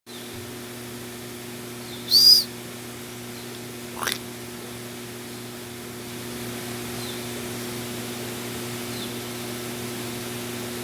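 Steady rushing of stream water in Atlantic Forest, with one loud, short arching bird call about two seconds in and a brief sharp chirp about four seconds in; faint short calls repeat later.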